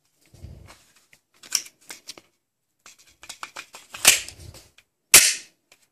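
Heckler & Koch P30L pistol and its magazine being handled: rustling and light clicks, then two sharp metallic clacks, one about four seconds in and a louder one just after five seconds, as the slide is closed.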